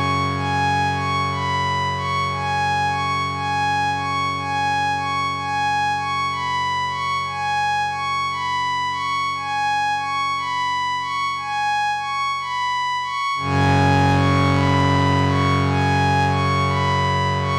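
Electronic music: a steady droning chord under a repeating pattern of short high notes, with a louder, hissier layer coming in about thirteen seconds in.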